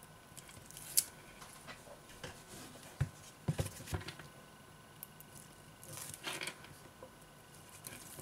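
Light clicks and taps of metal tweezers and fingertips handling a tablet's display panel and frame, with a sharp click about a second in, a few soft knocks a couple of seconds later and a brief rustle near the end.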